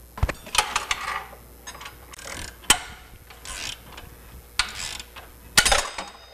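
Irregular metal clanks, scrapes and clicks as a new aftermarket catalytic converter is worked into place against its flange under a van, with a ratchet turned on the bolts; two sharp clanks stand out, about a third of the way in and near the end.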